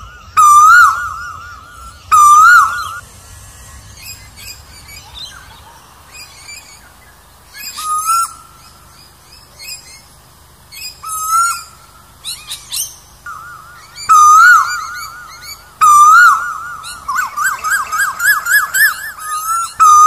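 Asian koel calling loudly in bursts of about a second of rapid warbling notes, several times, then a quicker run of rising notes near the end. Quieter high chirps come in between.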